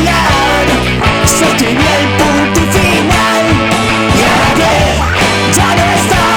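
A rock band's song playing loudly, with drums and cymbals hitting steadily under a melody that glides up and down.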